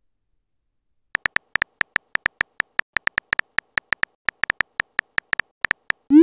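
Synthetic keyboard tap sounds of a texting app, a quick, uneven run of short clicks, about six a second, as a message is typed. Right at the end a short rising swoop tone sounds as the message is sent.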